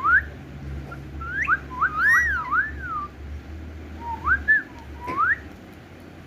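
Indian ringneck parrot whistling: a series of clear, pure whistled notes that swoop up and down, given in short runs with gaps between them.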